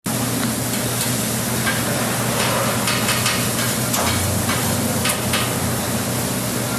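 Steady sizzle of food frying on a hot dog stand's griddle, with a few light clicks and scrapes scattered through it.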